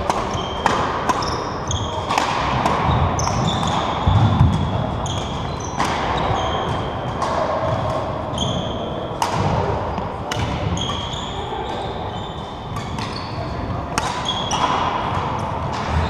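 Badminton rackets striking the shuttlecock in sharp, irregular cracks, and sneakers squeaking on the wooden court floor, in a large echoing sports hall, with low voices.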